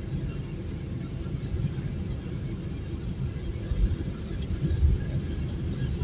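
Steady low rumble of road and engine noise inside a truck's cab at highway speed, about 67 mph, with a few louder low bumps about four to five seconds in.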